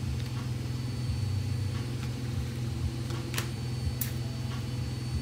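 Washing machine running: a steady low hum with an uneven pulse, and two light clicks from cards being handled about three and a half and four seconds in.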